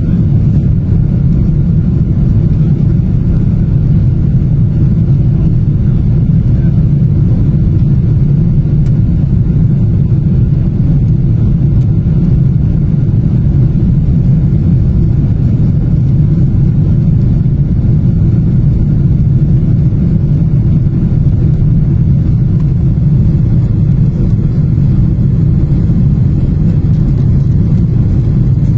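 Jet airliner cabin noise during the climb after take-off: the engines and rushing air make a steady, loud, low rumble inside the cabin.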